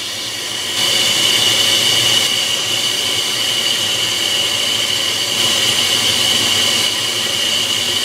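Takagi condensing tankless water heater firing while hot water runs through it and its brass valves: a steady hiss with a high steady tone, stepping up in level about a second in.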